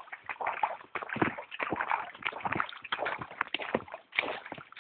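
Footsteps on wet, grassy ground: an irregular run of steps and rustles, with bumps from the phone being handled.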